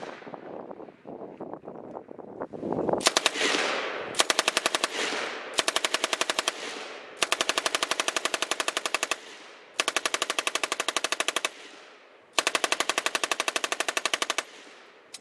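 MG 34 7.92 mm machine gun on a tripod firing fully automatic in six bursts, starting about three seconds in. The first bursts are short and the later ones last about two seconds each, every burst a fast, even run of shots trailing off in echo.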